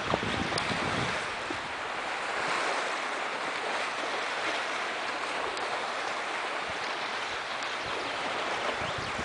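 Choppy river water splashing and washing steadily around a kayak, with wind rumbling on the microphone in the first second.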